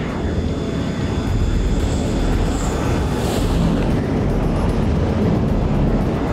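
Twin turbofan engines of an F/A-18 Super Hornet on a carrier landing approach, heard from the cockpit: a steady rushing jet noise over a deep rumble, getting a little louder after about a second.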